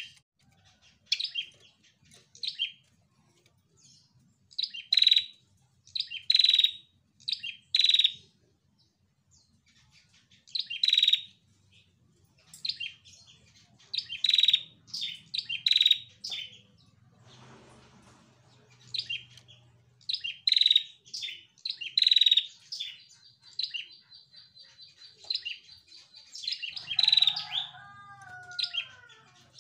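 Female prenjak (ashy tailorbird) giving loud, sharp, short calls in quick clusters, about one burst a second with short pauses, and a thin held high note a few seconds before the end.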